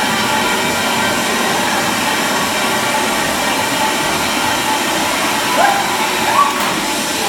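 Loud, noise-heavy mix of aerobics-class music and a room full of people moving, with two short rising calls a little over two-thirds of the way in.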